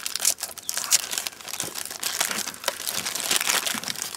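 Clear plastic bag crinkling as a hard drive is handled and slid out of it, a continuous run of irregular crackles.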